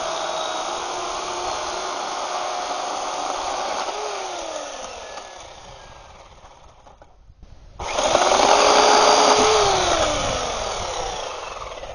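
Small 8-amp electric chainsaw with a 14-inch bar cutting a hardwood railroad tie. The motor runs steadily, then is let off about four seconds in and winds down. It is squeezed on again, suddenly and louder, about eight seconds in, and winds down once more near the end.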